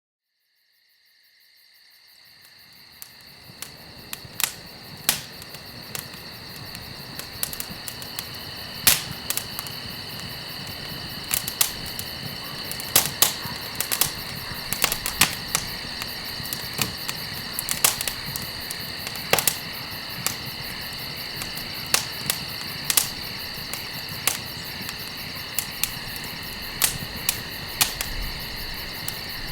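Campfire crackling, with sharp irregular pops of burning wood, fading in from silence over the first few seconds. Crickets chirp steadily behind it.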